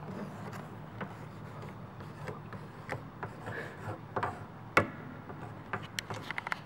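A pen scratching and rubbing across the bare wooden board of a dismantled upright piano, with scattered light clicks and taps on the wood. The sharpest click comes just before five seconds in.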